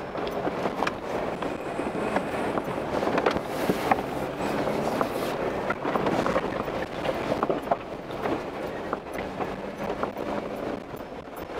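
A 4x4 crawling over a rough, rocky dirt road: many small knocks and rattles from the vehicle body and its load as the tires go over rocks, over a low running noise.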